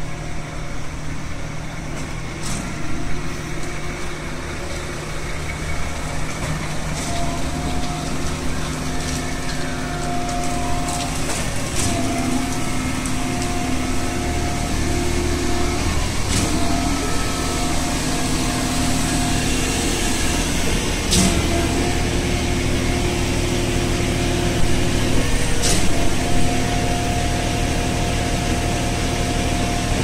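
Diesel engines of a concrete boom-pump truck and a concrete mixer truck running steadily as concrete is poured, a constant heavy drone with a humming tone over it. One falling whine comes about ten seconds in, and a few sharp knocks are scattered through.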